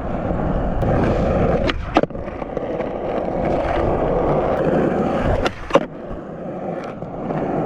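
Skateboard wheels rolling steadily over pavement, with sharp clacks of the board about two seconds in and again a little past five seconds.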